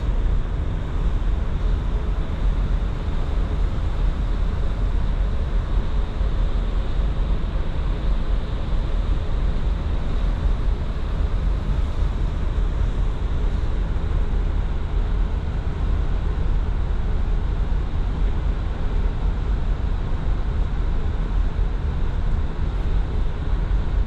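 Steady low rumble with a rushing hiss from a ferry under way at sea, even and unbroken throughout.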